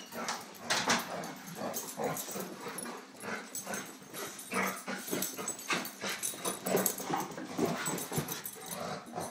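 Two dogs play-fighting, making a rapid, irregular string of short vocal noises and yips mixed with scuffling.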